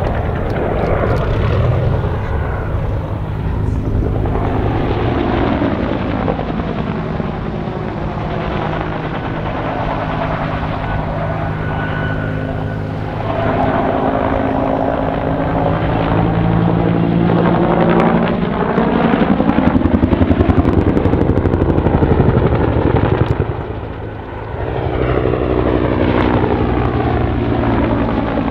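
Bell AH-1F Cobra helicopter in manoeuvring flight: its two-bladed main rotor beats steadily over the turbine, the tone sweeping up and down as it banks and turns. It is loudest about two-thirds of the way in and dips briefly soon after.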